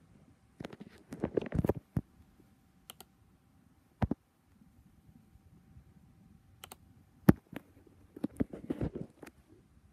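Clicking and key presses on a laptop, in small clusters: a run of clicks about a second in, a single click about four seconds in, and another run from about seven to nine seconds, with the sharpest click near seven seconds.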